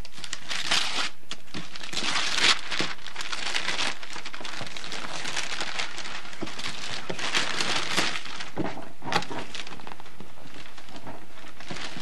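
Gift wrapping paper and tissue paper rustling and crinkling as presents are unwrapped, dense in the first few seconds and then thinning to scattered crackles.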